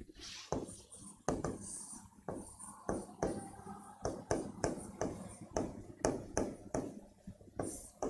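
Marker pen writing on a whiteboard: short irregular taps and scratchy strokes of the felt tip, about two a second, with a brief squeak about three seconds in.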